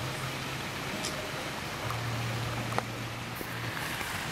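Steady outdoor ambience: an even wash of noise with a low, steady hum underneath and a couple of faint ticks.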